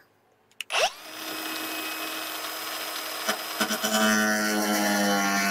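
A grinder starts with a quickly rising whine and runs at a steady high pitch. About four seconds in, its sound grows louder and deeper as it cuts into the sheet-metal housing of the combine's clean grain elevator.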